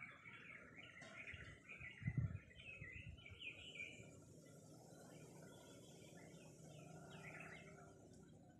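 Faint, busy chirping of small forest birds, many short calls overlapping. A brief low thump about two seconds in, and a faint high hiss through the second half.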